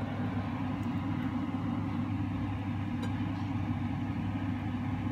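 Steady low hum of a kitchen appliance running by the stove, even and unchanging, while an omelette cooks in a frying pan.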